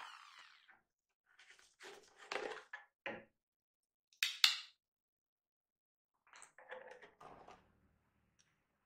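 A brief whirring that dies away at the start, then separate clatters and clicks of a hard plastic jar lid being handled, with two sharp clicks a little over four seconds in, the loudest. Scratchy handling noises follow near the end.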